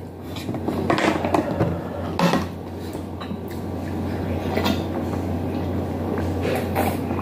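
Plastic water bottle picked up and drunk from: a few separate knocks and crinkles of plastic, with swallowing, over a steady low hum.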